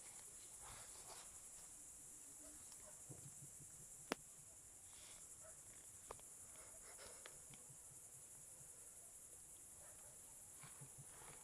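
Near silence: faint scattered rustles and light ticks over a steady high hiss, with one sharp click about four seconds in and a smaller one about two seconds later.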